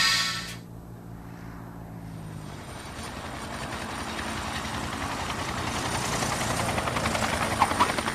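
Helicopter rotor and engine noise, a steady rapid chop that grows louder and louder, after music cuts off just under a second in.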